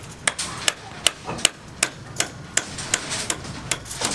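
Hammer blows struck at an even pace, about ten sharp strikes, two to three a second.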